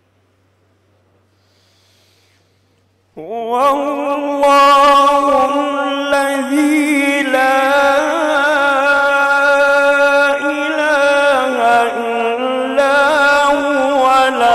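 A man reciting the Quran in Arabic in the melodic tajweed style. After a near-silent pause he starts about three seconds in, rising into one long held phrase with wavering ornaments on the sustained notes.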